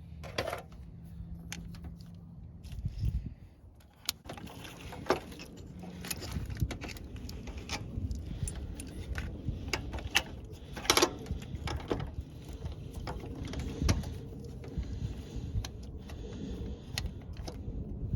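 Scattered metallic clicks, clinks and knocks of hand tools and parts, typical of a throttle body and its new gasket being bolted back onto a car engine.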